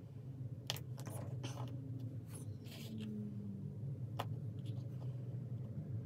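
Acrylic bicone beads on a bracelet strand being handled, giving a handful of small clicks and scratchy rustles, mostly in the first two thirds, over a steady low hum.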